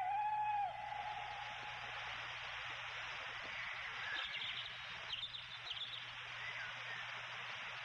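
Bird calls over a steady hiss: a held hooting call at the very start, then a few short chirps in the middle and near the end.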